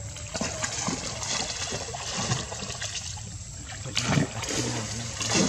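Water splashing and lapping as a swimming monkey moves through a pool, with irregular splashes and two louder ones, about four seconds in and near the end.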